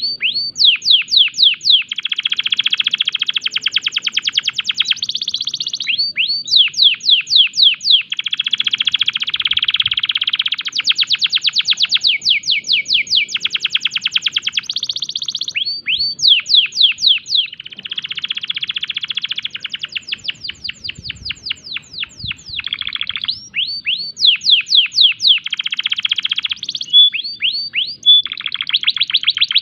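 Domestic canary in breeding condition singing a long unbroken song: runs of quick downward-sweeping whistled notes alternating with rapid buzzy trills and rattles.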